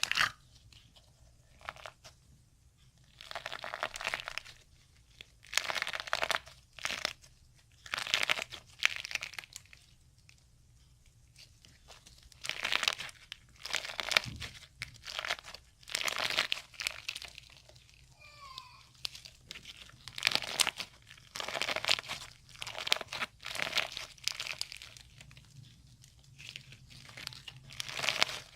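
Slime being squeezed and worked by hand, giving short crackling, crinkling bursts every second or two.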